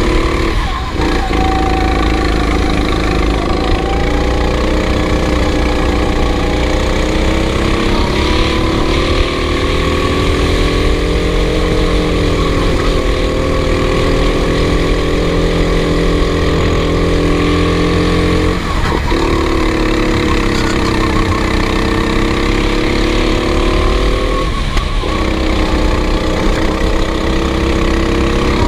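Racing kart engine running hard, its pitch rising and falling slowly through the lap, with three short drops where the throttle is lifted: about a second in, near the middle and again a few seconds later.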